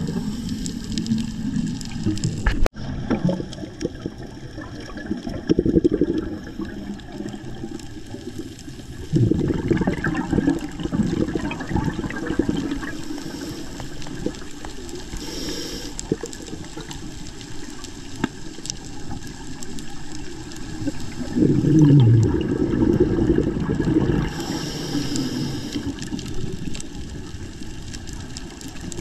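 Scuba diver breathing underwater through a regulator. Several bubbly exhalations, each lasting a second or more, are separated by a couple of short hissing inhalations.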